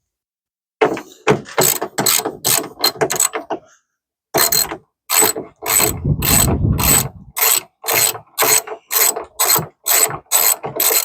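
Hand ratchet spanner clicking as a bolt is worked loose: a quick flurry of clicks, then steady clicks about twice a second.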